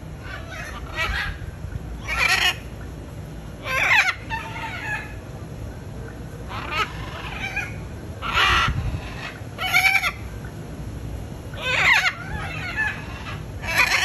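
Green-winged macaws calling over and over, with about ten short, loud squawks, one every second or two.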